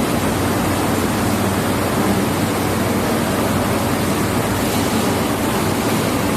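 Steady, loud rushing background noise with a faint low hum underneath, unchanging throughout and with no distinct clicks or knocks.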